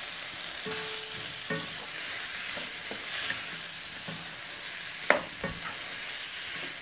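Chicken and vegetables sizzling in a nonstick pan while being stirred, with a few knocks and scrapes of the spoon against the pan, the loudest about five seconds in.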